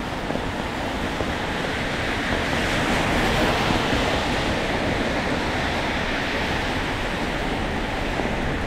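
Steady hiss of rain and tyres on a wet city street, swelling a few seconds in as a vehicle passes and then easing off again.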